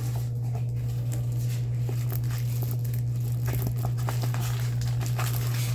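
Plastic packaging crinkling and rustling in short, scattered bursts as a diamond painting kit is unpacked, over a steady low hum.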